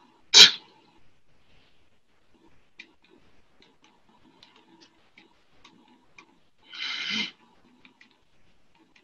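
Faint, scattered clicks and small handling noises at a desk, with a sharp click just after the start and a short noisy burst about seven seconds in.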